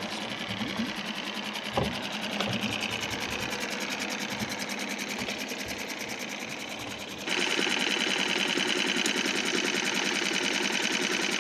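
A small Suzuki four-stroke outboard motor runs on an inflatable dinghy with a fast, even putter. It gets louder about seven seconds in.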